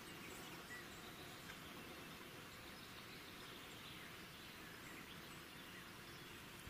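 Near silence: a faint, even outdoor background hiss with a few tiny ticks.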